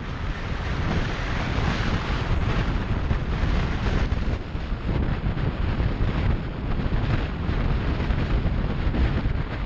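Steady wind rush buffeting the microphone of a camera on a Kawasaki Ninja 250SE motorcycle at road speed, with the bike's engine running underneath.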